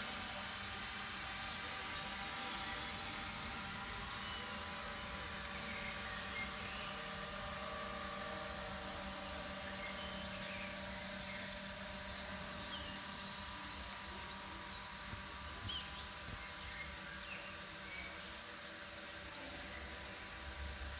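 A steady hum of several held tones, with scattered short bird chirps over it.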